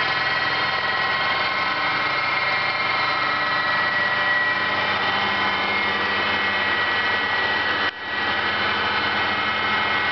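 Maho MH800 CNC milling machine running with its spindle at 1250 rpm, the cutter milling the combustion chamber into an aluminium piston: a steady machining whine with many steady tones. The sound breaks off briefly about eight seconds in, then carries on unchanged.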